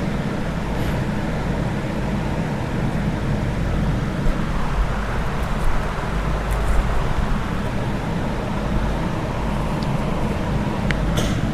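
Steady low background rumble with a hiss, unchanging, with a couple of faint ticks near the end.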